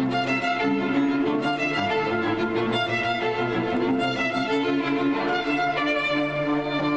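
Small string ensemble of violins and a cello playing classical music together, with several parts in held, bowed notes and a cello line underneath.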